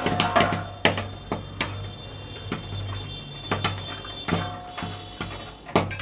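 Corn kernels popping in very hot salt in a kadhai, sharp pops coming irregularly about once or twice a second, mixed with a metal spatula stirring through the salt.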